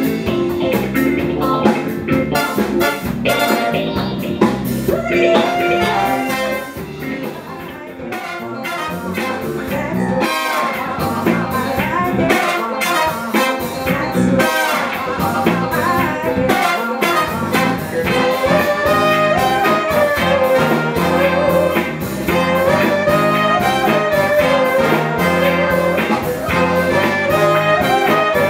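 Live showband playing soul-funk with a horn section of trumpet and trombone over electric bass and drums. The music dips briefly a few seconds in, then the horns carry a wavering melody line near the end.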